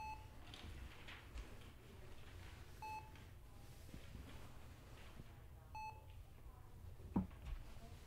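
Bedside patient monitor beeping a short single tone about every three seconds, three beeps in all, over a low room hum. A brief, sharp knock about seven seconds in is the loudest sound.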